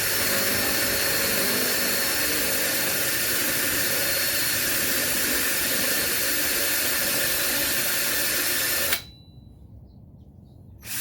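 Cordless power drill running steadily as it bores a hole through a tube rail, with a steady high whine over the grinding. It stops suddenly about nine seconds in.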